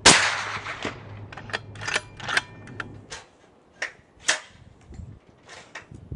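One suppressed shot from a .308 Black Collar Arms Pork Sword pistol fitted with a Q Thunder Chicken suppressor, a sharp report that fades over about a second. It is followed by a string of separate sharp clicks and knocks.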